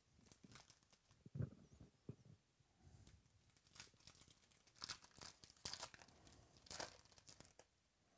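Wrapper of a Topps Finest baseball card pack being torn open and crinkled by hand: faint, in short crackling bursts, with a soft knock about a second and a half in.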